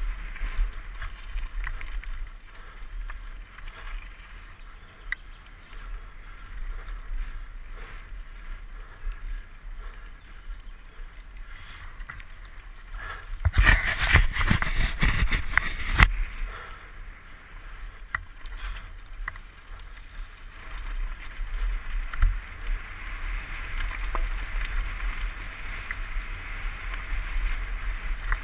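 Mountain bike running fast down a rough dirt forest trail, heard from a camera on the rider: wind rush on the microphone with the rattle and small knocks of the bike over the ground. About halfway, two or three seconds of loud rubbing and knocking right at the microphone as clothing brushes over it.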